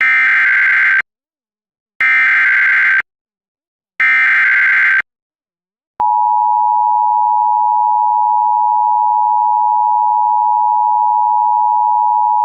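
Emergency Alert System SAME header: three one-second bursts of screeching data tones, a second apart, followed about six seconds in by the steady two-tone EAS attention signal. Together they signal the start of a broadcast emergency alert, here a severe thunderstorm warning.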